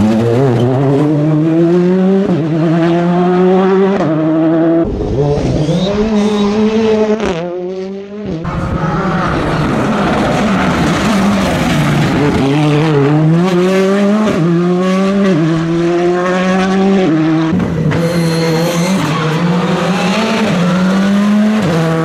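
Rally2 cars, a Citroën C3 and a Hyundai i20, driven flat out past at close range. Their turbocharged four-cylinder engines rev up through the gears, the pitch climbing and dropping back at each upshift, with tyre noise on the cobbles.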